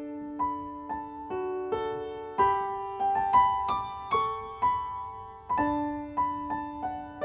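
Gentle piano music: single notes and chords struck about twice a second, each ringing on and fading.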